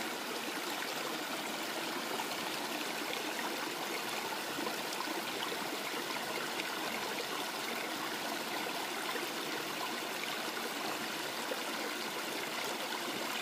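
Shallow stream running over rocks, a steady, even rush of flowing water.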